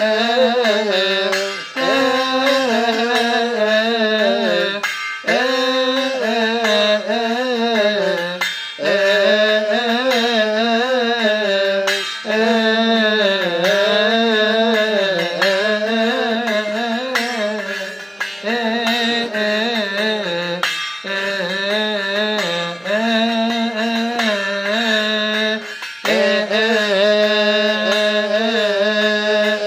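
Coptic hymn chanting for the month of Kiahk: voices singing long, wavering melismatic lines with short breaks for breath, accompanied by metal hand cymbals struck in a steady beat that rings throughout.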